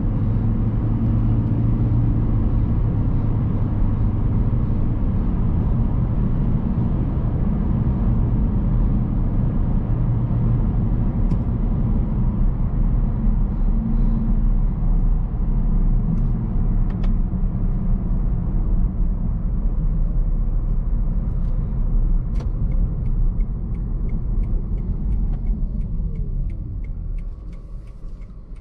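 Inside a Toyota Prius III hybrid's cabin while driving: steady tyre and road rumble, with the 1.8-litre petrol engine humming underneath. Near the end the noise fades as the car slows, with a whine falling in pitch and a few light clicks.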